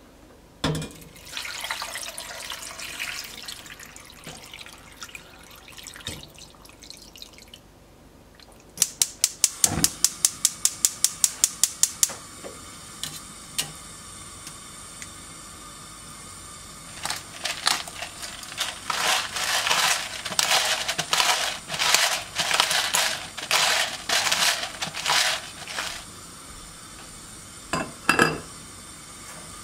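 Water poured into a stainless steel pot of beef short ribs and vegetables. About nine seconds in comes a rapid, even run of clicks like a gas burner's igniter. Later there is a long stretch of irregular grinding strokes as black pepper goes on, and a glass lid clinks onto the pot near the end.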